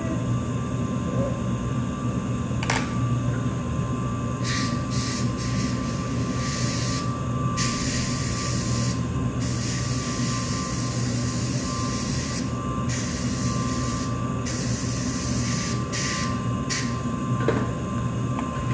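Dental suction running with a steady hum and a fixed whining tone, broken repeatedly by hissing spray bursts from a dental instrument, some short and some lasting a few seconds. A single sharp click comes near the start.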